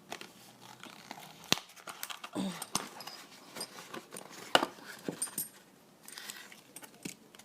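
A mail package being handled and opened by hand: brief crinkles and rustles of packaging with scattered sharp clicks and taps, the loudest a little past halfway.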